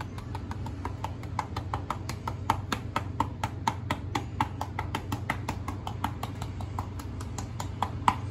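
A hand rapidly tapping a container of Old Bay seasoning to shake it out over pieces of fish, a steady patter of sharp taps at about four to five a second, with one harder tap near the end.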